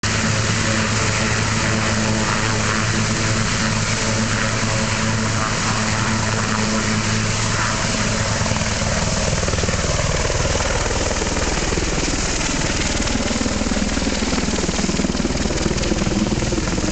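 Air ambulance helicopter's turbine engines and rotor running steadily on the pad, then lifting off about halfway through, the sound shifting and spreading as it climbs away overhead.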